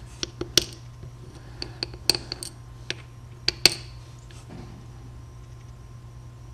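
Small metal key pins being taken out of a lock cylinder's plug, clicking and clinking sharply about half a dozen times at uneven intervals, over a steady low hum.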